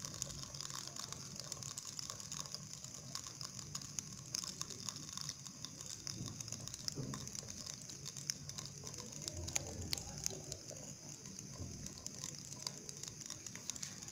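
Hot oil sizzling around chocolate in a glass: a steady hiss with many small, irregular crackling pops.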